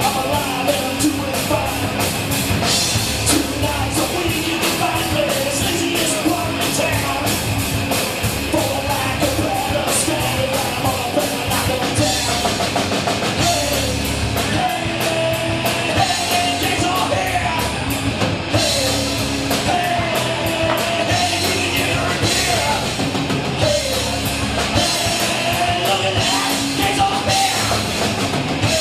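Rock song with a driving drum kit and a singing voice over it.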